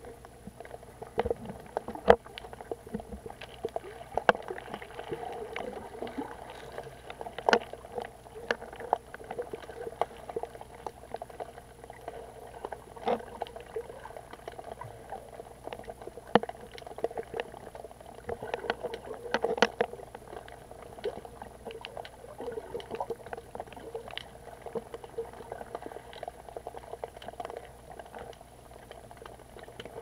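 Water sloshing and swirling around a camera held underwater by a swimmer, heard muffled, with irregular sharp clicks and knocks scattered through it, a few of them louder.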